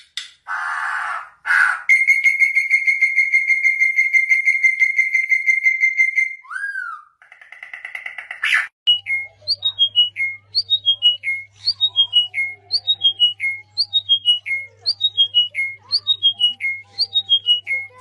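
Several different bird calls one after another. First come a few harsh, noisy calls, then a long steady high trill of about four seconds and a short buzzy call. From about nine seconds in, a phrase of quick notes falling in pitch repeats roughly once a second over a low steady hum.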